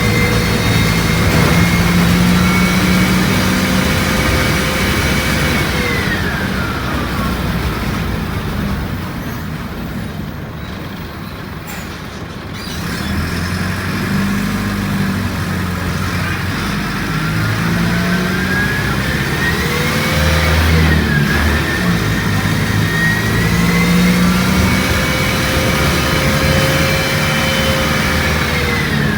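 Mercedes-Benz OF-1722M bus driving, its diesel engine running under a high whine that rises and falls with speed. The whine holds steady, glides down as the bus slows about six seconds in, climbs again as it picks up speed in the second half, and falls away near the end. This whine is taken for the strange noise the bus is making.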